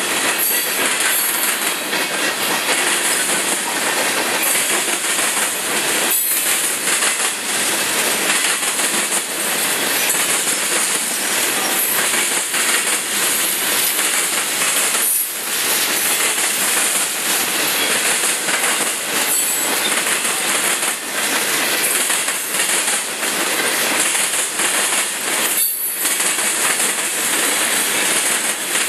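Freight train cars rolling past at close range: a steady, loud wheel-on-rail noise from a long string of tank cars, covered hoppers, boxcars and refrigerator cars, dipping briefly three times.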